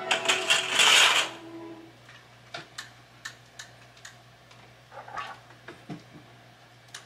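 Horizontal window blinds rattling as they are handled, for about the first second, followed by a scattering of light clicks and taps.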